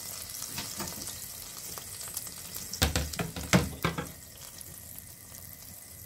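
Hot oil and juices left from pan-frying chicken thighs sizzling steadily in a frying pan, with a few sharp clicks about three to four seconds in.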